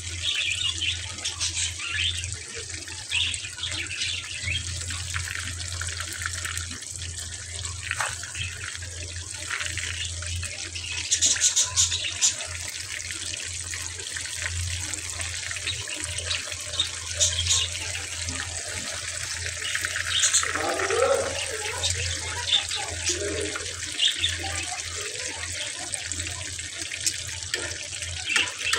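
Battered fish pieces deep-frying in hot oil in a karahi: steady sizzling and bubbling with scattered crackles, over a steady low hum.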